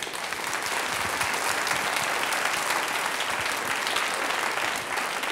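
A large audience of schoolchildren applauding, the clapping starting all at once and holding steady.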